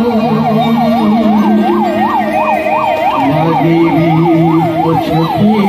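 An electronic siren yelping, its pitch sweeping up and down about three times a second, over lower held tones that change pitch every second or two.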